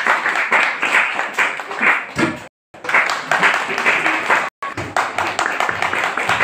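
Audience clapping, dense and irregular, with voices mixed in. The sound drops out completely twice, briefly.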